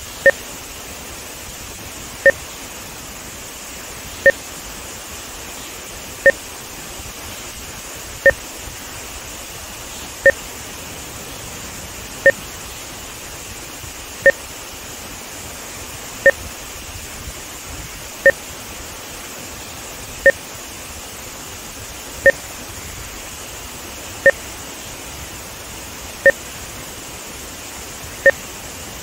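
Short electronic beeps, one every two seconds, each a lower and a higher tone sounding together: audio timing markers for measuring audio-video sync. Beneath them, a steady rush of water pouring out below a dam.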